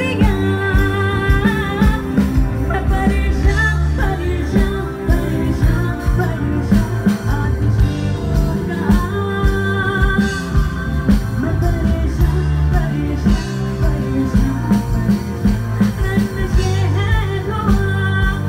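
Live band music: a woman singing into a microphone over electric guitar, bass and drum kit, played loud through a PA.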